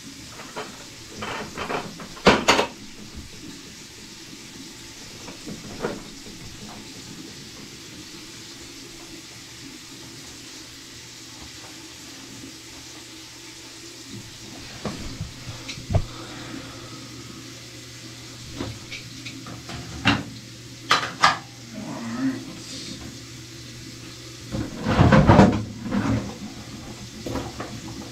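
Scattered knocks and clatters of hard objects being handled over a steady background hiss. A low steady hum comes in about halfway, and the loudest run of clattering comes near the end.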